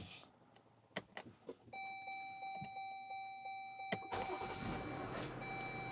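2021 Chrysler Pacifica's V6 being started: a few clicks, then a steady electronic tone once the ignition is on. The engine cranks and catches about four seconds in, then settles into a steady idle. It starts cleanly after the trouble codes are cleared, while it is being diagnosed for a rough idle and a P0108 MAP sensor code.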